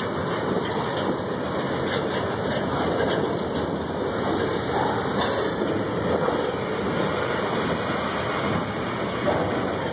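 CSX freight cars, boxcars and steel gondolas, rolling past at close range: a steady noise of steel wheels running on the rails.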